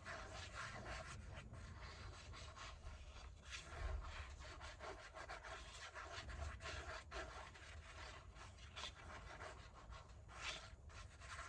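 Faint rubbing and scratching of paper being handled and pressed, with many small scattered scuffs and taps.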